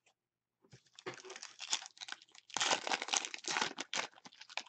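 Silver foil wrapper of a trading-card pack crinkling in the hands as it is torn open. The crackling rustle starts about a second in and is loudest in the middle.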